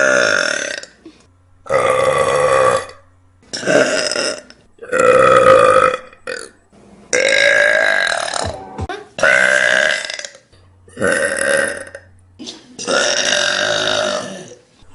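A person burping loudly again and again: a series of about eight long, pitched burps, each lasting around a second, with short pauses between them.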